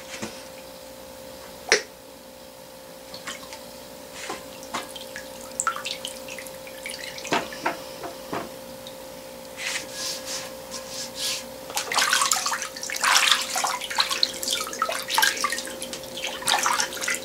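Rusty, murky electrolysis solution splashing and dripping in a plastic tub as hands lift a rusty steel mandrel out of the bath. The splashing starts sparse and gets busier in the second half. A faint steady hum runs underneath.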